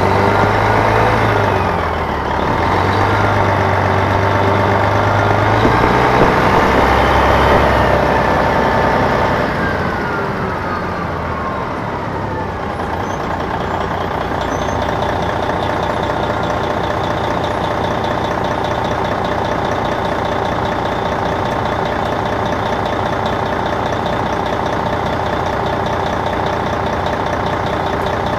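Detroit Diesel Series 60 diesel of an MCI D4000 coach, heard from the rear of the bus. For about the first ten seconds it revs up, with pitch stepping at the Allison automatic's gear changes. It then winds down and settles to a steady run.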